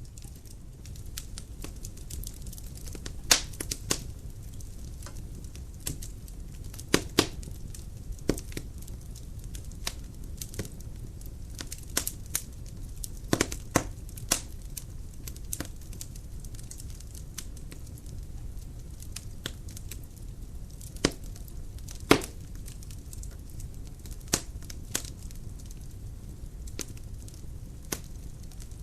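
Dry firewood burning in a fireplace: irregular sharp crackles and pops over a low steady rumble of the flames, with a few louder pops several seconds apart.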